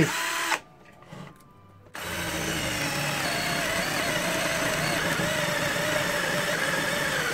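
Counterfeit Bosch GSR 18-2-LI Plus cordless drill with a 20 mm spade bit, giving a brief whir at the start. From about two seconds in it bores into a softwood block, the motor running under load with its pitch wavering as the bit cuts.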